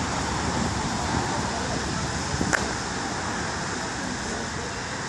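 Steady traffic noise, with a single sharp click about two and a half seconds in.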